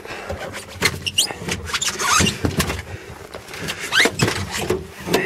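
Spare wheel being wrestled out of a VAZ-2101's trunk: rubber tyre scraping and squeaking against the trunk's metal, with knocks and thumps as the wheel shifts. Quick rising squeaks come about a second in and again about four seconds in.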